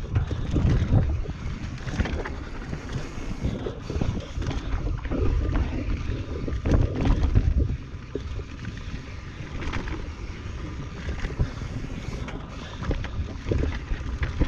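Transition Patrol Carbon mountain bike riding down a rough trail: wind buffeting a chest-mounted camera's microphone over a low rumble of tyres on dirt, with frequent knocks and rattles of the bike over rocks and roots. It is rougher and louder for the first eight seconds or so, then eases a little.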